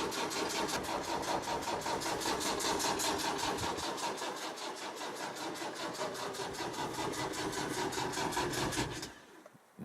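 Land Rover Discovery's starter motor cranking the engine in a steady, rapid rhythm without it catching, after the car has stood for two to three weeks. The cranking stops suddenly about nine seconds in.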